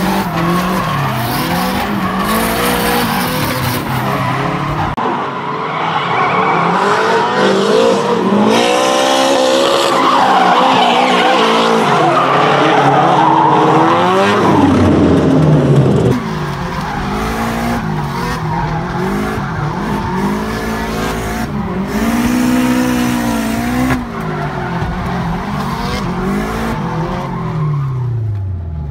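Nissan S13 Silvia drift cars sliding, their engines revving up and down hard, bouncing and falling away, with squealing tyres. The sound changes abruptly a few times.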